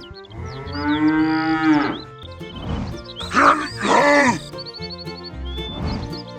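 Cattle mooing over background music: one long moo starting just after the beginning that sags in pitch as it ends, then two shorter, louder moos around three to four seconds in.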